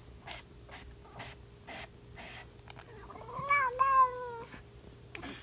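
A cat meows once, about three seconds in: one drawn-out meow that rises, then falls. Soft short noises repeat about twice a second around it.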